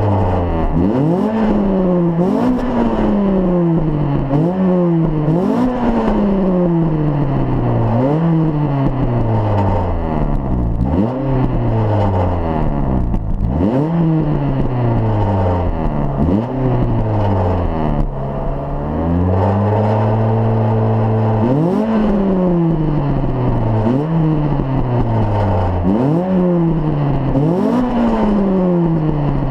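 Vehicle engine heard at the exhaust, revved over and over: each time the pitch jumps up quickly and slides back down, about every one to two seconds, with the revs held steady for a few seconds about two-thirds of the way through. The owner finds the exhaust noise strange.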